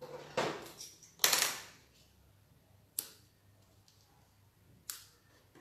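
Handling of a paper card on a cutting mat: two brief rustling swishes, then two sharp clicks about two seconds apart from small craft scissors trimming the sewing thread.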